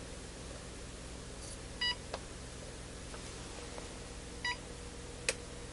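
OWON DGE2070 arbitrary waveform generator switching on: two short electronic beeps from its beeper about two and a half seconds apart as it boots, each followed shortly by a light click.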